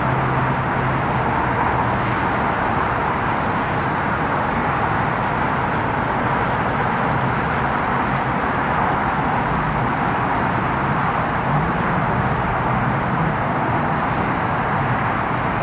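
Steady, even roar of a distant Falcon 9 rocket in flight, its first-stage engines heard from far below, with a steady low hum underneath.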